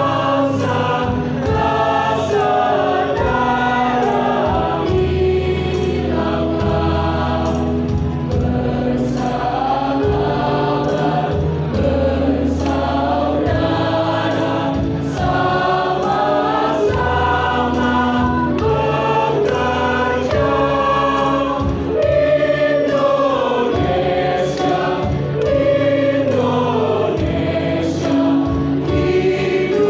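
Mixed choir of high-school students singing together, several voices at different pitches sounding at once.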